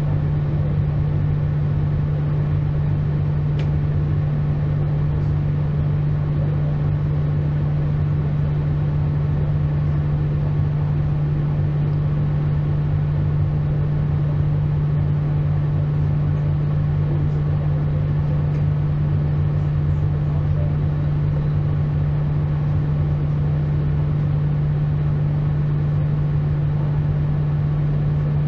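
Regional passenger train running steadily, heard from on board: a constant rumble with a strong, steady low hum.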